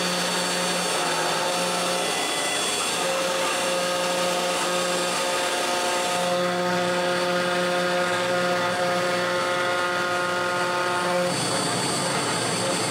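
Background music of held chords that change every second or two.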